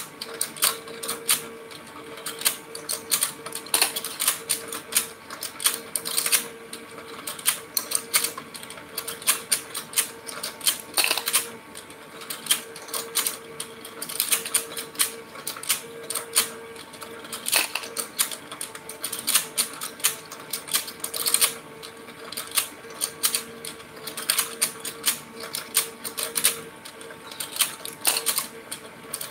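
Electric toy fishing game running: its plastic fish and mechanism clatter in rapid, irregular clicks over a steady motor hum.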